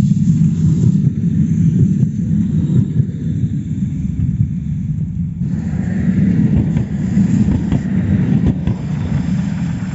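Modern low-floor articulated electric trams passing on snow-covered track, a steady low rumble of wheels on rail. About halfway through a fainter higher whine and rail noise join as a tram comes close.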